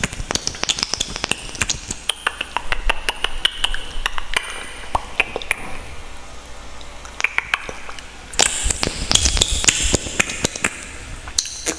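Close-miked clicking and tapping as objects are handled, many light sharp ticks in quick succession, with a louder stretch of rustling about eight and a half seconds in.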